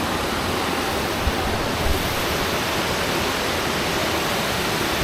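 Waterfall rushing with a steady, even roar of falling water. Two soft low thumps about a second and two seconds in.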